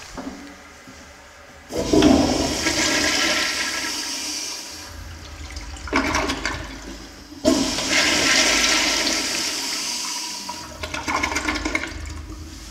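A toilet flushing twice. Each flush starts suddenly with a loud rush of water, about two seconds in and again about seven and a half seconds in, then fades over a few seconds into choppy gurgling as the bowl drains.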